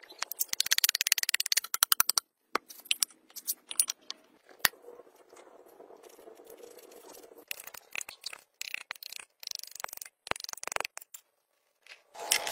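Metal parts clicking and rattling as a bearing, a splined shaft and a large spur gear are handled and fitted into a Shibaura SD2200 tractor's gear housing, with a fast run of clicks near the start and scattered single clicks after.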